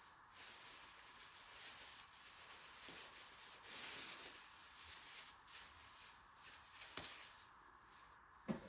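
Faint rustling and handling noises, with a soft click about seven seconds in and a sharper knock near the end.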